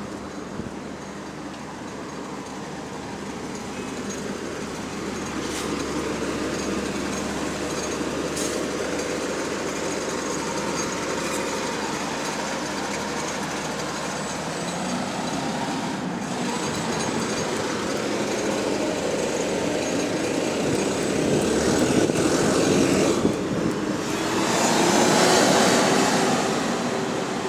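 ADL Enviro400 MMC double-decker bus with a hydraulic cooling fan pulling away from a stop, its engine running and growing louder. Near the end a rising whine comes in as it accelerates away.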